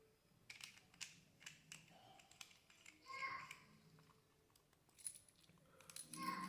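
Mostly quiet, with faint scattered clicks and taps of a laser pointer and its extra attachment tip being handled and fitted. A brief faint voice in the background about three seconds in.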